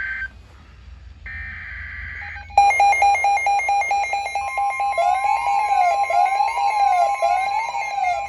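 Weather radio emergency alert starting: buzzy digital header data bursts, then about two and a half seconds in a loud pulsing alarm tone begins, joined by a steady higher tone and a siren-like tone that rises and falls about once a second.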